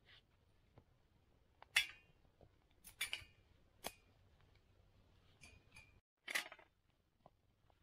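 About four sharp metallic clinks and scrapes, each with a brief ring, like metal utensils knocking against camping cookware; the loudest come near the start and about two-thirds of the way through.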